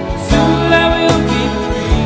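Background music: a song laid over the footage.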